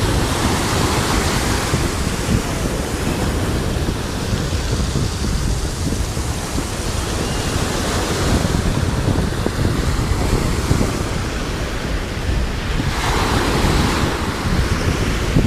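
Sea waves washing in, with wind buffeting the microphone in a steady low rumble. Surges of surf rise and fall about a second in, around eight seconds and again around thirteen seconds.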